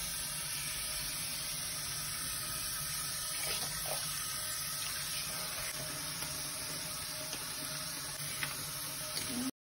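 Tap water running steadily into a basin while a wet wig is scrubbed and squeezed under the stream, with a few faint clicks. The water sound stops abruptly just before the end.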